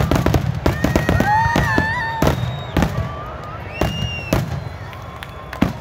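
Fireworks display: a fast run of sharp bangs and crackles from aerial shells, thinning out and getting quieter toward the end, with one sharper bang just before the end. A few smooth, rising held tones sound over the crackle around the first and fourth seconds.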